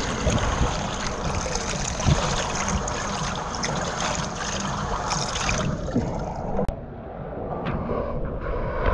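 Steady rush of running and splashing pool water, which turns duller and a little quieter about two-thirds of the way through.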